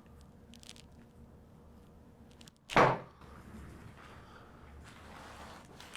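A single short, loud thump about three seconds in: the thrust of a chiropractic jaw (TMJ) adjustment.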